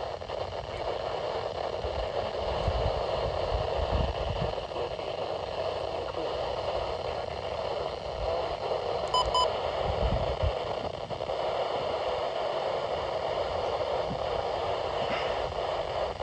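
Steady static hiss from a weather radio receiver on a noisy signal, with a faint short double beep about nine seconds in.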